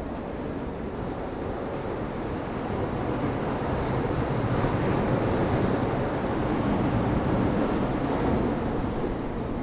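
Steady rush of ocean surf mixed with wind buffeting the microphone. It swells louder through the middle and eases near the end.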